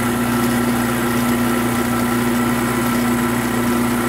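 7x12 mini lathe running steadily in high gear, a constant motor hum with gear whine, while the tool is fed against a plastic bar held in an ER32 collet chuck.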